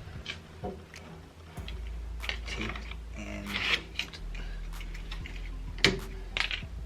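A thump, then scattered clicks and knocks of hand work, over a low steady hum that comes in about a second and a half in.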